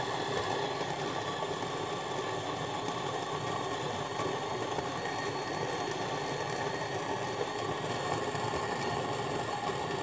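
Capresso Infinity Plus conical steel burr coffee grinder running steadily, grinding whole beans at a medium setting into its catch bin. A steady motor whir with grinding noise underneath, muffled a little by its stainless-steel casing.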